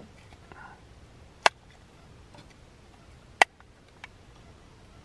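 Two sharp clicks of tableware being handled, about two seconds apart, then a fainter click.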